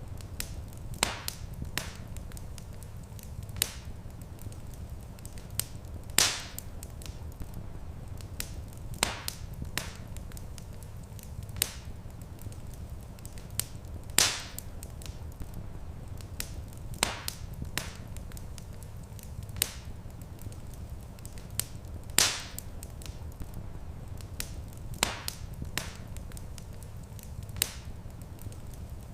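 Wood fire crackling in a stone fireplace: irregular sharp pops and snaps, a few much louder than the rest, over a steady low rumble.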